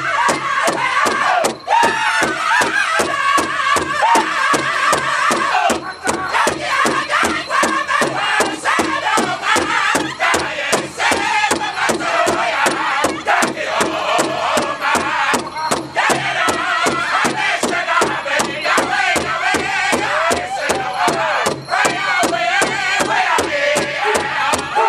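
A powwow drum group singing a northern-style song: many men's voices in unison with sliding pitch over a steady beat of several drumsticks striking one large hide drum together.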